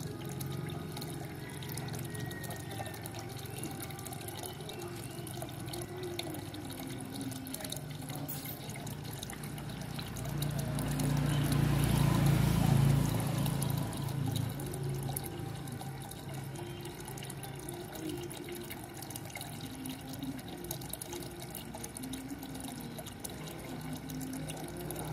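A thin stream of water falling from a pipe into a fish pond, splashing and trickling steadily. It swells louder for a few seconds about halfway through.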